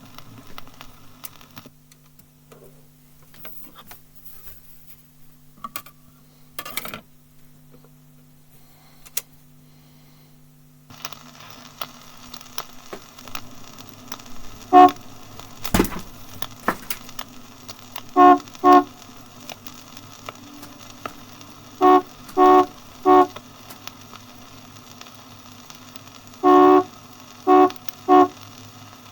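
A river boat's horn giving short toot signals: one blast, then two, then three, then one longer blast followed by two short ones. A steady engine drone runs underneath, and there is a single sharp knock in between.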